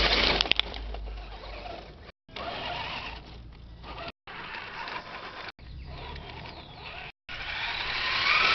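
Tamiya CC01 Ford Bronco electric RC truck driving over gravel and concrete, its motor and gears whining and its tyres crunching, heard in several short clips cut together. Wind rumbles on the microphone in the first couple of seconds, and the motor whine swells near the end.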